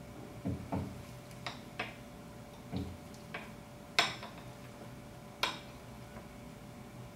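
Metal fork clinking and tapping against a cut-glass plate while cutting through an omelette: about eight irregular light clinks, the loudest about four seconds in, with a few dull knocks in the first three seconds.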